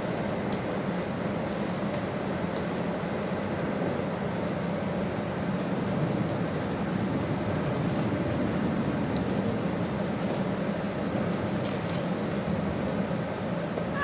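Steady drone of vehicle engines and road traffic, with a low hum that does not change, and a few faint ticks.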